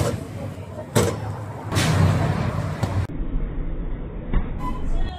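Sharp knocks of a hand tortilla press clapping shut on masa, over street noise. About three seconds in the sound changes abruptly to a quieter, duller low hum.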